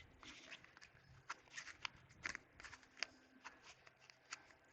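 Faint scattered clicks and scrapes of a cardboard advent calendar box and its packaging being pried open by hand.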